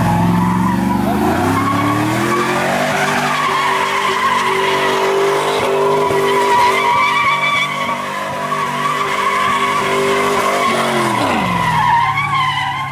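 Car spinning donuts: the engine revs climb over the first couple of seconds and hold high while the tyres squeal and smoke, then the revs drop sharply near the end.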